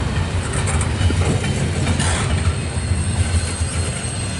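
Double-stack intermodal freight train's loaded well cars rolling past close by: a steady rumble of steel wheels on the rails.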